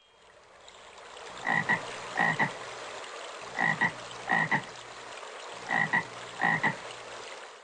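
A frog croaking six times, in three pairs about two seconds apart, over a steady background hiss.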